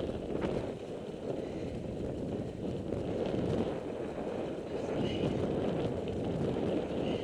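Mountain bike riding over a rough dirt and gravel track, heard from a helmet camera: an uneven rumble of the tyres on the loose surface and the bike rattling over bumps, with a few sharp clicks.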